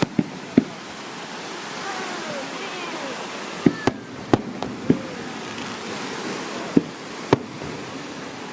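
Fireworks going off in a quick series of sharp bangs, about eight in all, in clusters near the start, around the middle and near the end. Underneath is a steady wash of ocean surf.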